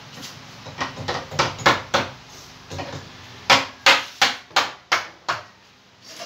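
Hammer blows on the wooden frame under a kitchen counter, as a lower cabinet is fitted. An uneven run of strikes comes first, then six evenly spaced, louder blows at about three a second.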